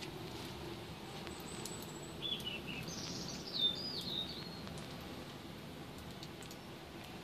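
Steady hiss of falling sleet and rain with scattered faint ticks of drops, while a small songbird gives a few short high chirping phrases from about two to four seconds in.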